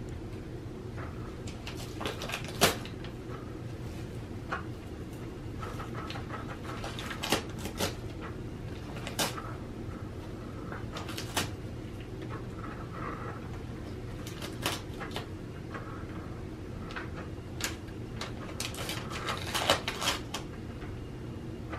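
Cat chewing and tearing at a crumpled paper ball: irregular crinkling and crackling of paper, busier near the end, over a steady low hum.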